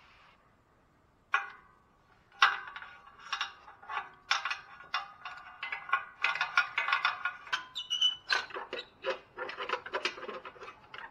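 Thin sheet-metal heat shield on an exhaust catalytic converter clanking, rattling and ringing as it is pried and worked off by hand. Two sharp clanks come about one and a half and two and a half seconds in, then a rapid run of metallic clatter.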